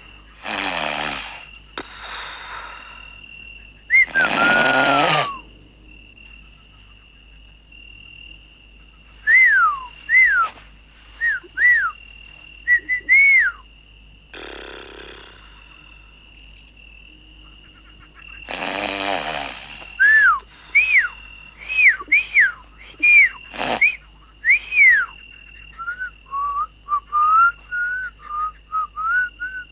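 A man snoring: loud rasping snores about a second long, a few times. Between and after them come short whistles sliding down in pitch, and near the end a wavering, tune-like whistle.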